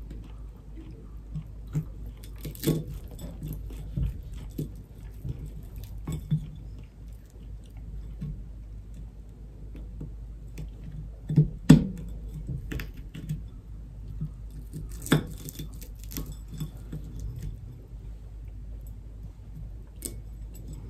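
Close-up eating sounds: crunchy, flaky pie crust being chewed, with a metal fork clinking and scraping on a ceramic plate in short clicks, a few of them sharp and loud.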